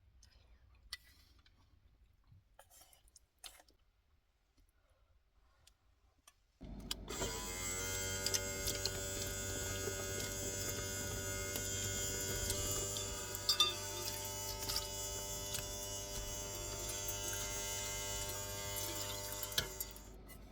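A portable camping water heater's small electric pump starts suddenly with water rushing through it. It runs steadily with a whine, then cuts off near the end.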